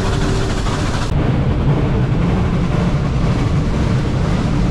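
Steady low rumble of a moving train.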